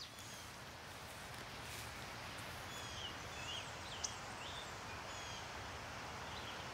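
Outdoor ambience: a steady background hiss with small birds chirping now and then in short, high calls. One brief tick about four seconds in.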